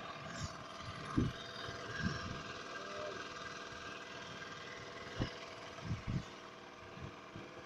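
A steady mechanical hum, like an engine running at a distance, with several soft low thumps scattered through it.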